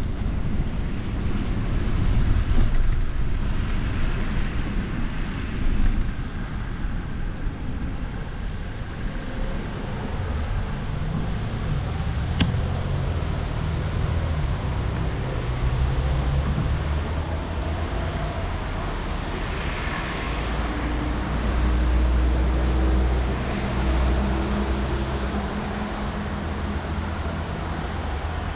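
Road and traffic noise heard while cycling, with wind rumbling on the microphone and motor vehicles passing, an engine hum coming and going in the second half. A single sharp click about twelve seconds in.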